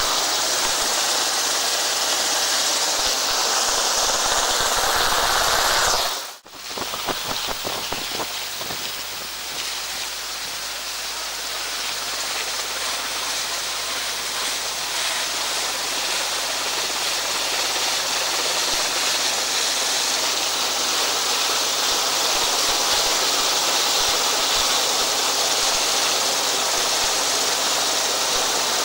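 Steady rush of wind and water noise aboard an Atlantic 85 rigid inflatable lifeboat running at speed, with spray and wind buffeting the onboard camera. It cuts out briefly about six seconds in and returns a little quieter, with a few knocks just after, then builds slowly again.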